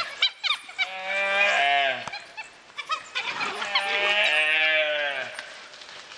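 Gaur bawling in distress while dholes attack its calf: two long, loud moo-like calls that drop in pitch at the end, with a few short sharp clicks near the start.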